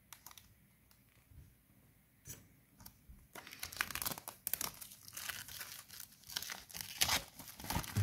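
Clear cellophane shrink-wrap being torn and peeled off a CD jewel case, crinkling. A few light clicks at first, then dense, irregular crackling from about three seconds in.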